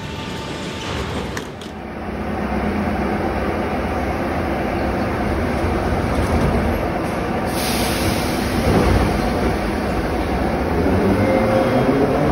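Metrovagonmash 81-717/714 metro train at a station platform, a steady rumble and hiss. Near the end comes a rising whine as the train's traction motors speed up and it pulls away.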